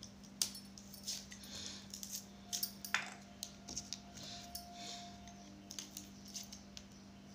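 Garlic cloves being peeled by hand: soft papery rustling of the skins with scattered light clicks and taps, the sharpest about three seconds in, over a steady low hum.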